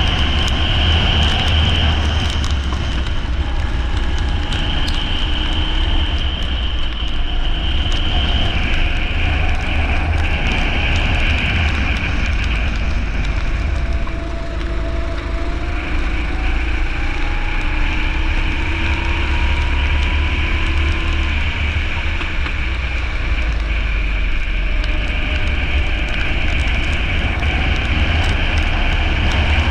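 Racing rental kart engine running continuously under a steady low rumble, its pitch rising and falling with the throttle.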